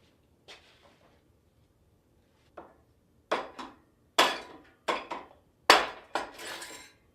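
Metal parts knocking and clanking together: a run of about eight sharp knocks, each with a short ring, louder over the second half.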